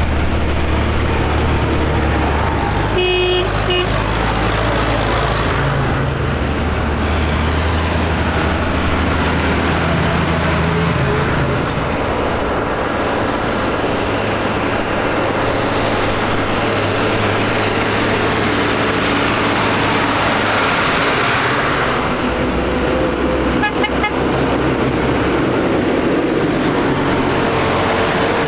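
Large farm tractors' diesel engines passing by on a road one after another, loudest at first as the nearest tractor goes past close up. A short horn toot about three seconds in.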